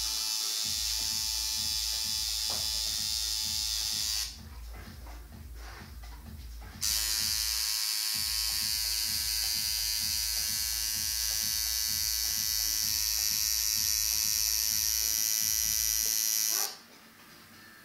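Electric tattoo machine buzzing steadily while working on skin. It stops about four seconds in, starts again two and a half seconds later, and stops again just before the end.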